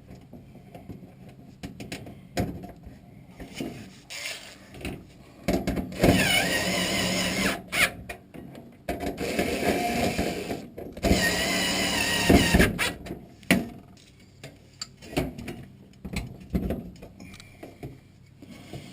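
Cordless drill/driver motor running in two spells of about two seconds each, its pitch wavering under load, among light clicks and handling knocks.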